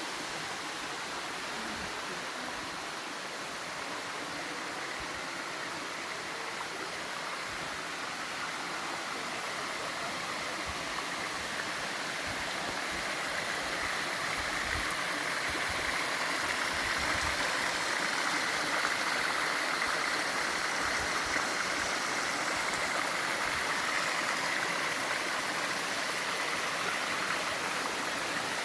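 Water rushing down the Bua Tong sticky waterfall's limestone cascade, a steady rush that grows louder about halfway through.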